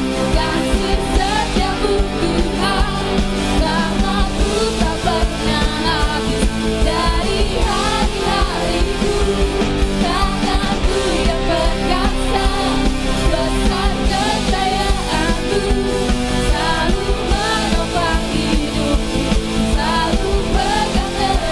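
Worship band music with a steady beat and a melody line that bends up and down.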